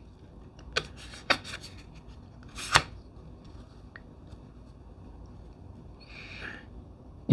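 Tarot cards being handled: a few light taps and slides of card on card in the first three seconds, the sharpest near the three-second mark, then a short soft rustle about six seconds in.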